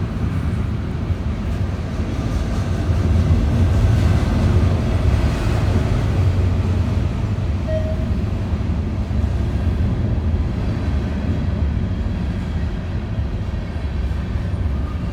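CN freight train's cars rolling past on the rails: a steady low rumble that swells a few seconds in.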